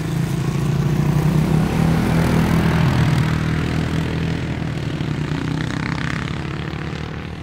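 An ATV engine running as it passes by on a dirt road, growing louder over the first couple of seconds, then slowly fading as it moves off.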